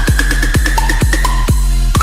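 Loud bass-heavy electronic dance music: a kick drum hits about twice a second over a steady deep bass, with a high synth line that slowly rises in pitch.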